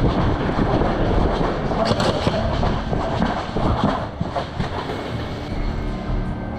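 Running footsteps on paving with the clatter of a carried airsoft rifle and gear, and handling knocks on a helmet-mounted camera. The rattling is busiest for the first four seconds, then eases.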